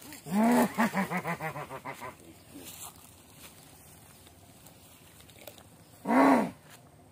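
Loud whooping calls likened to a siamang gibbon's: one whoop, then a quick run of shorter whoops falling in pitch over about two seconds, and one more single whoop near the end.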